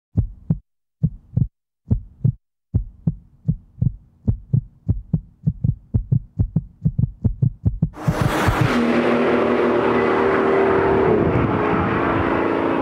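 A heartbeat sound effect, paired low thuds that quicken over about eight seconds. Then, suddenly, the loud rush of a car at top speed: a steady engine drone under heavy wind noise.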